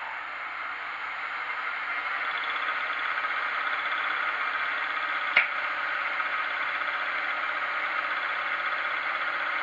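Milling machine running a fly cutter through a brass gear blank as the table feeds slowly: a steady whirr that grows louder over the first three seconds and then holds, with one sharp click about halfway through.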